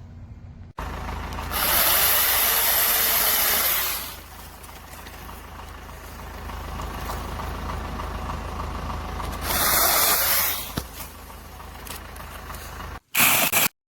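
Angseen 6-inch cordless brushless mini chainsaw running, revving up loudly twice for a few seconds at a time, with a short loud burst near the end.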